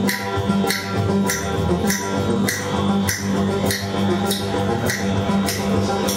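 Live experimental ensemble music: a steady low droning hum under a regular pulse of bright, hissy hits, a little under two a second.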